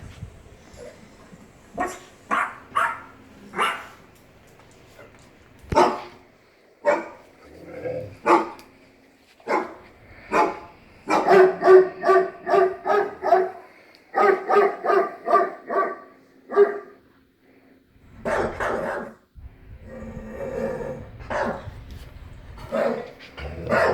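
Dog barking repeatedly: scattered single barks at first, then rapid runs of about three barks a second around the middle.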